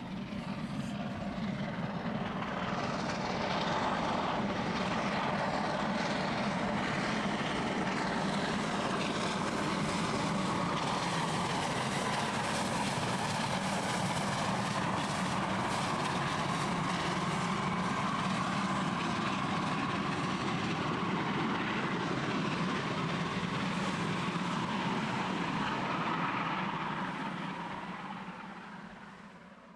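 DR class 41 steam locomotive 41 1144-9, a two-cylinder 2-8-2, working hard past with a passenger train: rapid exhaust beats over the running noise of the train on the rails. The sound builds about two seconds in and fades away near the end as the train draws off.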